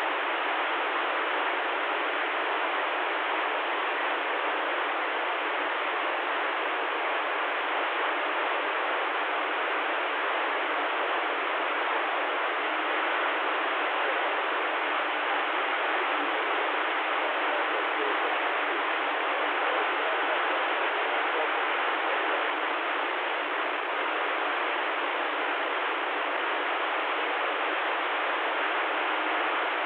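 Steady hiss of static from a CB radio receiver with no station coming through: an even, thin rush of noise with no voices or tones in it.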